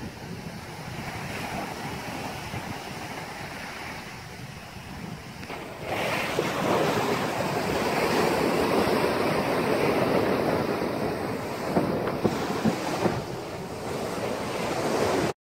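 Ocean surf washing onto the shore, with wind buffeting the microphone. It grows louder about six seconds in and cuts off abruptly at the very end.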